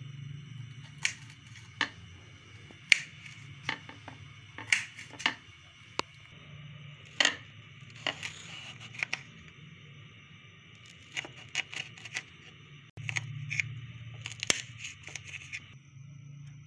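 Kitchen knife cutting green chillies on a plate, the blade knocking sharply against the plate about a dozen times at irregular intervals, over a steady low hum.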